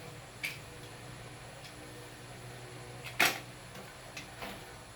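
A few short, sharp clicks or taps, the loudest about three seconds in, over a faint steady low hum.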